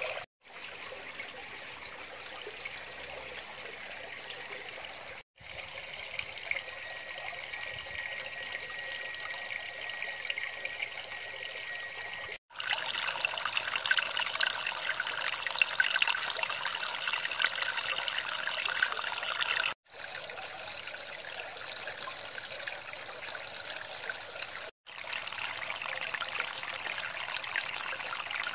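Water trickling and splashing over rocks into a koi pond, a steady rush. It drops out for an instant several times and is loudest and brightest through the middle stretch.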